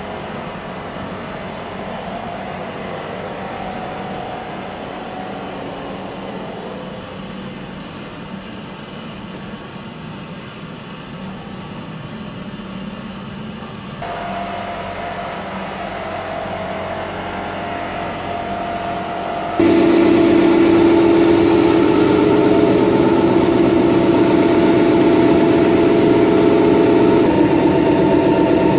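Grasso RC 8411 refrigeration compressor unit running steadily, driven by its 120 kW electric motor: a continuous mechanical hum with steady tones. The sound changes abruptly about halfway through and again about two-thirds through, becoming much louder with strong steady tones.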